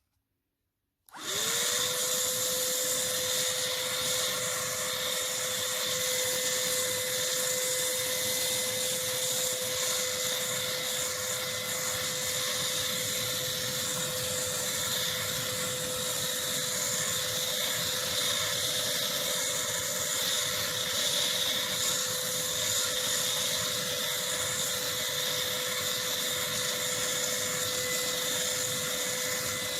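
Cordless stick vacuum cleaner switched on about a second in: its motor spins up with a quick rising whine, then runs at a steady pitch with an even rush of air.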